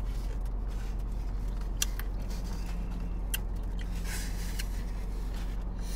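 Steady low hum inside a car's cabin, with a few sharp clicks and a short rustle about four seconds in from eating and handling plastic takeout trays.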